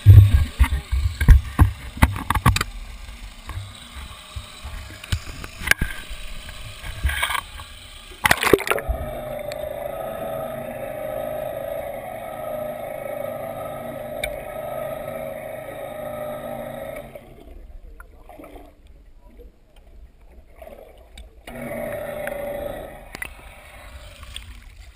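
Knocks and handling bumps on a GoPro camera housing. About eight seconds in it drops under the sea surface and the sound turns muffled, with a steady hum that stops around seventeen seconds and returns briefly near the end.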